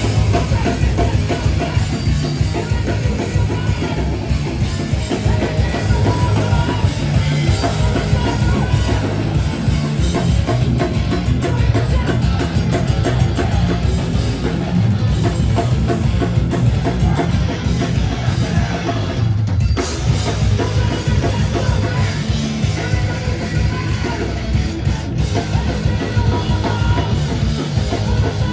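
Hardcore punk band playing live at full volume: pounding drum kit under distorted electric guitars and bass, with no let-up.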